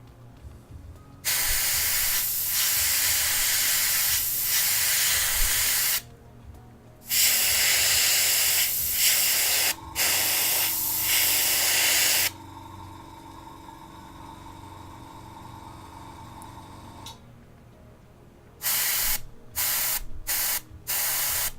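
Compressed-air paint sprayer hissing in long bursts of several seconds, then a run of short quick bursts near the end, laying on metallic pearl paint. A faint steady hum sits under the quieter stretch between bursts.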